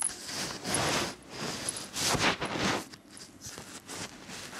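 A cat rubbing its face and fur directly against the camera, the fur scraping over the microphone with a loud grinding rub. The rubs come and go several times, each lasting under a second.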